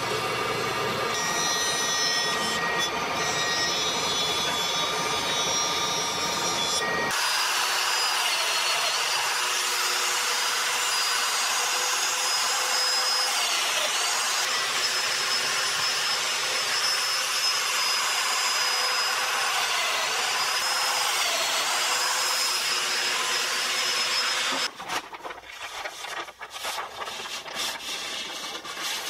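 A thickness planer runs as walnut boards feed through it. It gives way to the steady hiss and high whine of a Festool Domino joiner cutting mortises in walnut, the whine dipping briefly several times. Near the end, brown paper crackles and rustles as it is unrolled from a roll.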